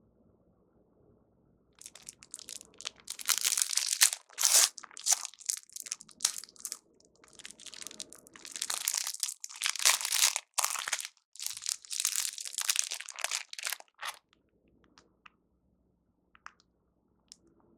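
Crinkling and crunching of a plastic food wrapper being handled and torn open, in irregular bursts with short pauses, stopping suddenly near the end.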